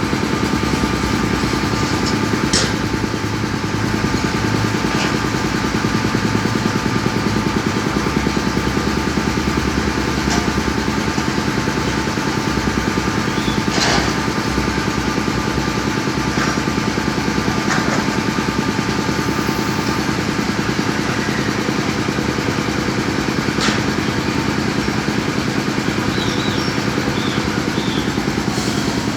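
Excavator's diesel engine running steadily, with a handful of short metallic clanks from the machine's work scattered through.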